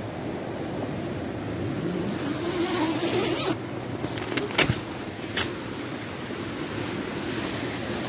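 Steady rush of a river in spate. Over it, tent fabric rustles and there are a few sharp knocks, the loudest about four and a half and five and a half seconds in, as the tent door is pushed open.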